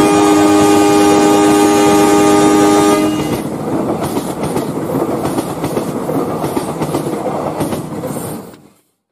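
Train horn blowing one long chord, cutting off about three seconds in. It is followed by the rumble and clickety-clack of wheels passing over rail joints, which fades out near the end.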